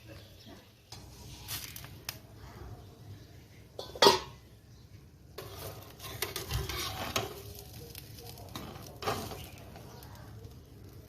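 Kitchenware clattering: scattered clinks and knocks of utensils against dishes, the loudest a sharp knock about four seconds in, with a busier run of clinks a little later.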